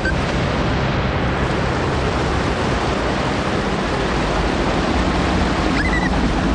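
Loud, steady rushing of water, an unbroken roar of flowing floodwater, with a brief high squeak near the end.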